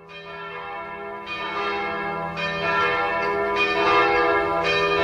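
Church bells ringing, a fresh strike about every second, fading in from silence and growing steadily louder.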